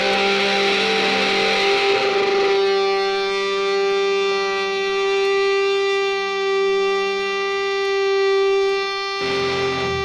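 Math rock with distorted electric guitar: the full band sound cuts away about two and a half seconds in, leaving a single held note ringing steadily, with a short burst of the band again near the end.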